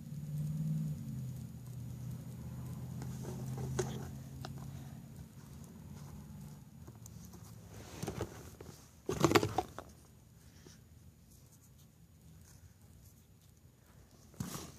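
Handling and mixing slime in a bowl, with small clicks and a loud short clatter about nine seconds in and another knock near the end. A low steady hum runs under the first half.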